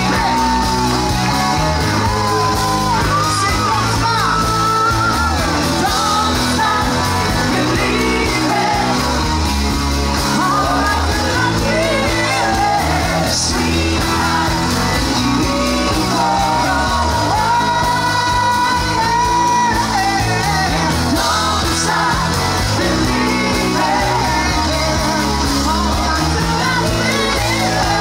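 Live band playing: a male lead singer over electric guitar and drums.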